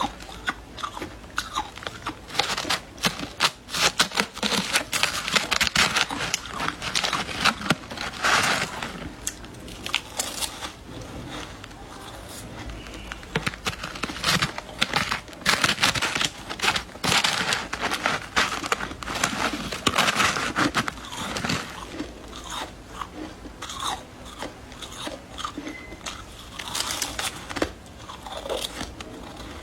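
Someone biting and chewing refrozen shaved ice: loud, irregular crunching in clusters, with a brief lull partway through.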